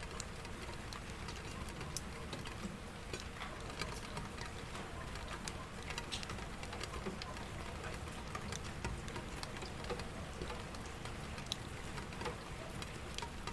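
Steady rain falling, with scattered sharp drip and patter clicks over a constant hiss.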